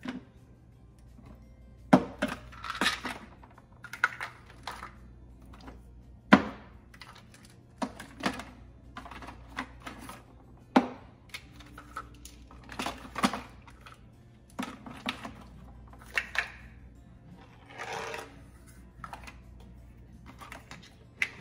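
Plastic supplement bottles knocking and clattering as they are picked up and set down into plastic storage baskets in a drawer: irregular sharp knocks every second or two, with short rattles between them.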